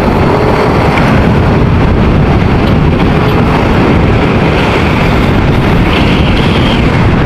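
Motorcycle being ridden: steady, loud wind noise on the microphone mixed with engine and road noise.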